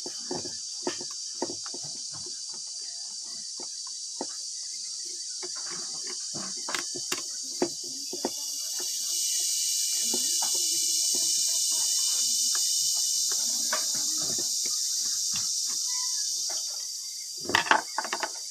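Steady high insect chorus that swells louder for several seconds in the middle, with scattered light clicks and taps of a screwdriver working on the plastic housing of a Makita 9527NB angle grinder.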